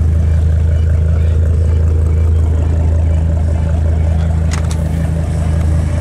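Evotech-tuned Audi RS6's twin-turbo V10 running steadily at idle through its oval twin-tip exhaust, a deep even drone with no revving. Two short clicks sound about four and a half seconds in.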